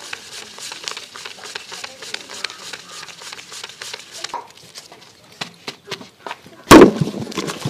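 Paper banknotes being counted by hand: a fast run of light flicks and rustles, thinning out after about four seconds. A loud sudden burst of sound comes near the end.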